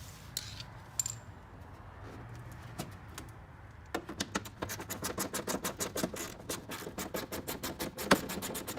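Ratchet wrench clicking fast as a 10 mm screw at the bumper's side is turned out, after a few scattered clicks of tool against plastic trim.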